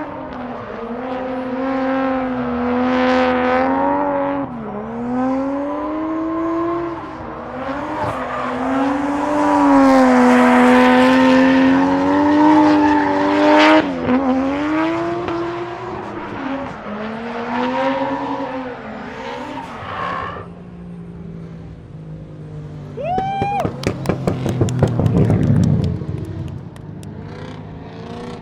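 Drift car engine running at high revs through a run, its pitch rising and dipping with the throttle over the hiss and squeal of sliding tyres, loudest in the middle. Near the end, a short sharp rev climbs in pitch with a rapid stutter.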